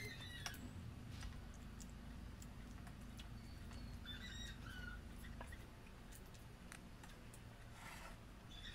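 Faint eating sounds: scattered small clicks and smacks of chewing and of peeling boiled shrimp by hand, over a low steady hum.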